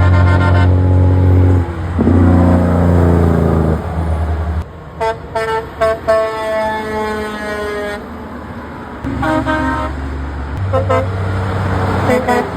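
Passing trucks and lorries sounding their horns: a short blast at the start, one long blast held for about three seconds in the middle, and several short toots near the end. These come over the heavy engine drone of the trucks going by.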